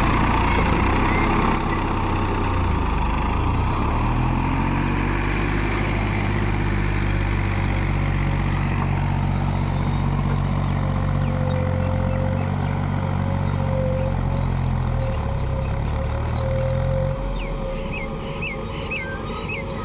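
A JCB backhoe loader's diesel engine running under load while it digs. The revs climb a few seconds in, hold steady, then drop back about 17 seconds in. A thin steady whine joins in over the second half.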